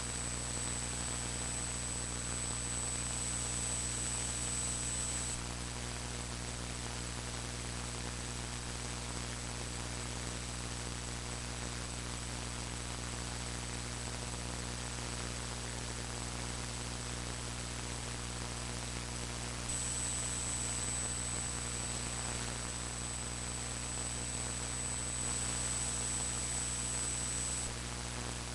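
Steady electrical hum and static hiss from a faulty recording chain, with no speech. A thin, high whine sits on top for the first few seconds and returns later, then stops near the end.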